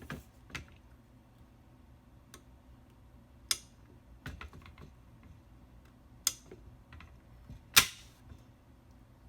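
AR-15 upper receiver being fitted onto the lower receiver: a series of sharp metal clicks and clacks, with three louder ones, the loudest near the end.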